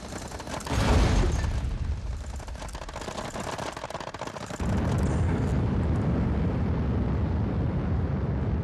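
Saturn V rocket staging heard from inside the crew cabin, as dramatised for film: a sudden boom about a second in followed by a rattling rumble, then a little past halfway a heavier steady rumble cuts in suddenly as the next stage's engines light.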